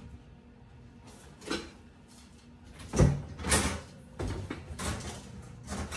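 Lower kitchen cabinet opened and cookware knocking and clattering while a colander is dug out of it. A few separate knocks, the loudest about halfway through, then a busy run of clatter.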